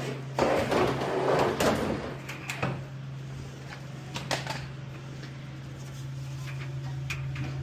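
Scraping and clattering of dryer parts being handled as the drum is set back in the cabinet, with a few sharp knocks, over a steady low hum.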